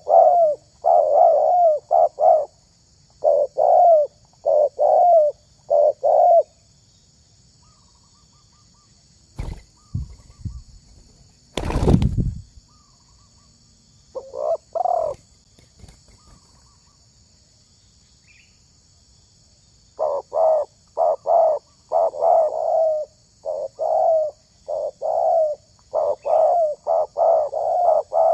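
Spotted dove cooing in repeated rhythmic phrases, in two long bouts with a quiet stretch between. A few low thumps and one loud thump come in the pause, about ten and twelve seconds in.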